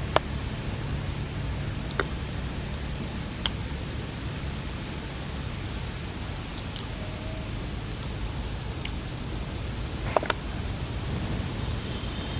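Steady, even outdoor background hiss, with a few scattered sharp clicks, the last of them a close pair.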